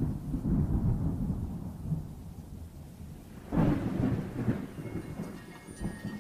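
A deep, rolling rumble that swells louder about three and a half seconds in, then dies back.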